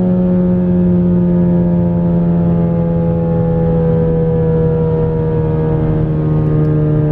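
Ford Focus ST's turbocharged 2.0-litre EcoBoost four-cylinder heard from inside the cabin while driving, a steady engine note that slowly drops in pitch over a bed of road noise.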